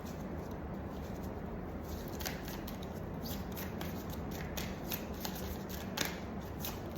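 Tarot cards being shuffled and handled, a run of light irregular snaps and rustles, over a steady low hum.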